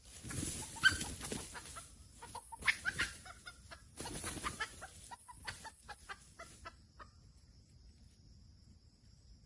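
Red junglefowl clucking in short notes amid scuffling knocks, stopping about seven seconds in.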